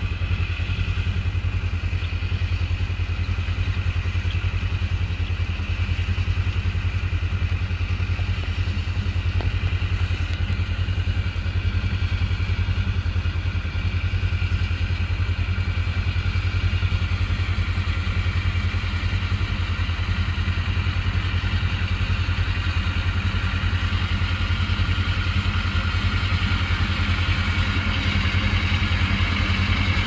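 John Deere 2020 tractor's diesel engine running steadily under load while it pulls a haybine cutting hay, with a faint clatter of the cutting machinery.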